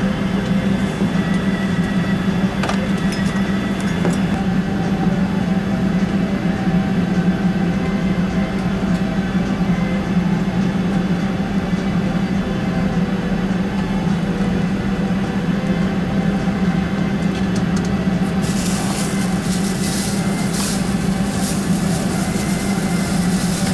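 Steady cabin hum inside a Boeing 767-300 on the ground, a strong low drone with several steady tones above it from the aircraft's running systems. About eighteen seconds in, irregular crackling hiss joins it.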